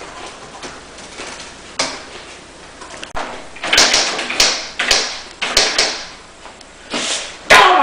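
Typewriter keys being struck in irregular clacks, sparse at first, then louder and busier from about three seconds in, with the loudest strike near the end.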